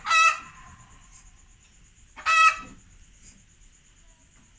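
Two short, loud farm-animal calls about two seconds apart, each lasting about half a second, over a steady high-pitched whine.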